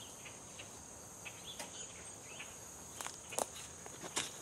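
Footsteps on leaf-covered ground, a few scattered steps with sharper ones a little after three seconds and near the end, over a steady high-pitched insect trill.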